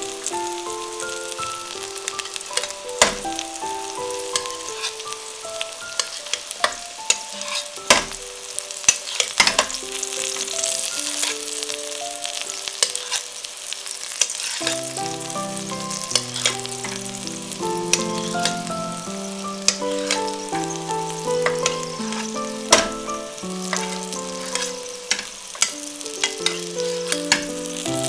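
Flour-dusted chicken breasts frying in shallow oil in a stainless steel sauté pan: a steady sizzle with frequent sharp pops and clicks as the pan is tilted and the oil spooned over the meat. Gentle background music plays under it, with a lower bass part joining about halfway through.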